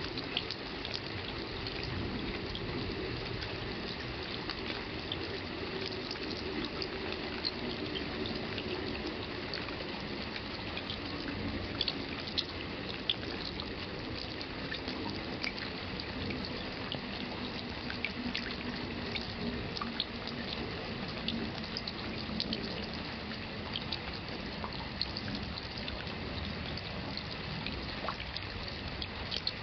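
Steady rain falling, with the sharp ticks of single water drops striking, scattered irregularly over an even hiss.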